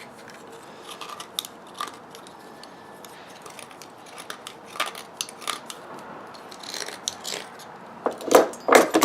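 A metal tool scraping leftover lead solder from the inside of a copper fitting: irregular scrapes and clicks, with a few louder scraping strokes near the end.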